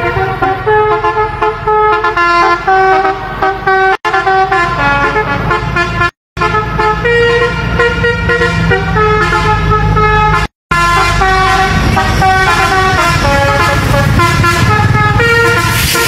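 Basuri V3 telolet bus horn playing a quick melody of short stepping notes, over the low rumble of the bus engine. The sound drops out briefly three times.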